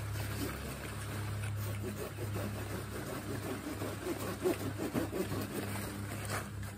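Cacao leaves and branches rustling and crackling as the tree is pruned by hand, the rustling busiest about four to five seconds in. Under it runs a steady low engine-like hum.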